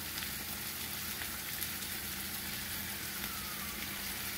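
Diced beef sizzling steadily in a hot frying pan, over a low steady hum.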